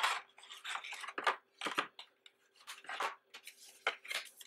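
Stiff printed photo cards and a paper sleeve rustling and sliding against each other, with short scrapes and light taps of card on card as the photo set is handled and boxed.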